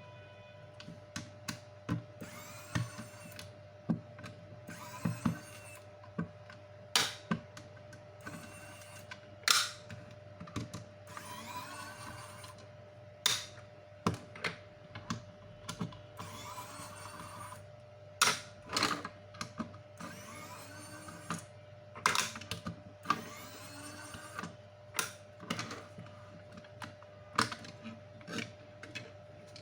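Irregular clicks and knocks with short scraping sounds that slide in pitch, from hands and tools working on a small device, over a faint steady hum.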